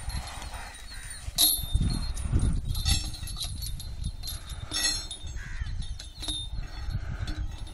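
A yoked pair of Ongole bulls dragging a heavy stone slab across dry ground, heard as a continuous low rumbling scrape. Three sharp clinks with a short ring come about one and a half, three and five seconds in, and there are a few short calls from the men driving them.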